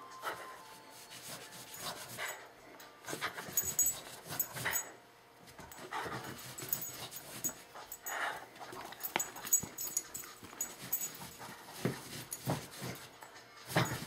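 Beagle panting in irregular bursts while tugging on a rope toy.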